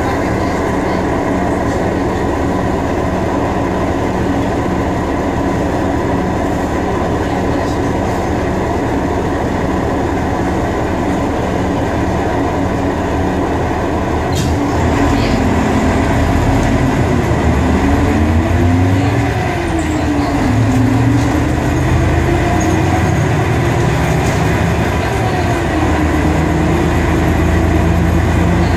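Ikarus 280 articulated bus heard from inside the passenger cabin, its diesel engine running steadily. About halfway through there is a sharp click, then the engine grows louder and its pitch rises and drops several times as the bus accelerates.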